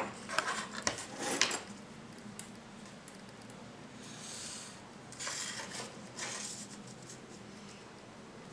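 A steel ruler clicking and clattering against the table as it is set down and shifted into place over paper, then a few soft scratching strokes of a pen drawn along its edge.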